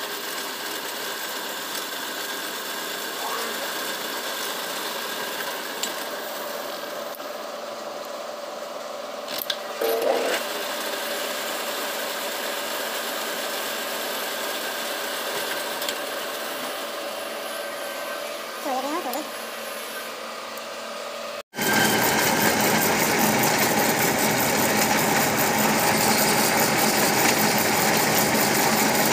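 Metal lathe running, its cutting tool turning a white plastic bushing: a steady machine hum with cutting noise. About two-thirds of the way through the sound changes abruptly to a louder, denser lathe noise.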